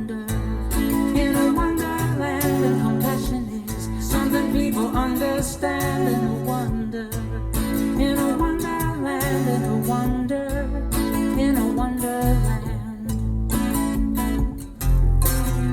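Country-style song with acoustic guitar and a steady bass line.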